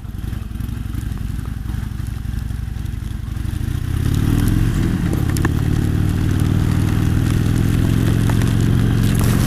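Harley-Davidson Sportster 883 Superlow's air-cooled V-twin running at low speed, then revving up about four seconds in and pulling at a steady, louder, higher note.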